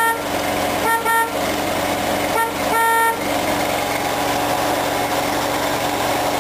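John Deere 210 garden tractor's horn tooting five short times in the first three seconds, the last a little longer, over the tractor's engine running steadily as it warms up after a cold start.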